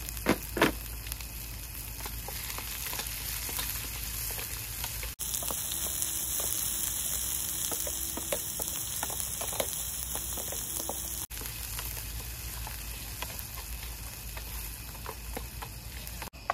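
Chopped onion sizzling in hot oil with cumin and whole coriander seeds in a frying pan, a steady frying hiss. There are two sharp knocks near the start, and the sizzle is louder in the middle stretch.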